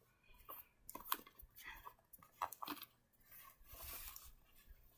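Faint handling noise: scattered soft taps, clicks and rustles of hands moving plush toys close to the microphone, with a brief louder rustle a little past the middle.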